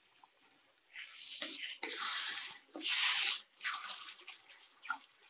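Tamarind water splashing and sloshing in a steel kadai as it goes in and is stirred with a steel ladle, in uneven bursts, the two loudest a little past the middle.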